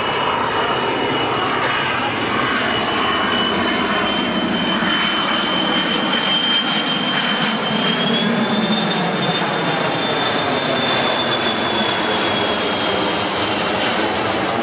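Kawasaki C-1 transport's twin turbofan engines during a slow low pass with flaps extended. The engine noise is steady, with a high whine that rises slightly a little past halfway.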